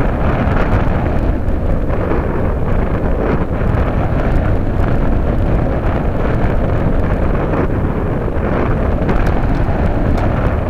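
Airflow rushing and buffeting over the microphone of a #11 keychain camera riding on a Radian powered glider in flight: a loud, steady wind roar with no clear motor tone.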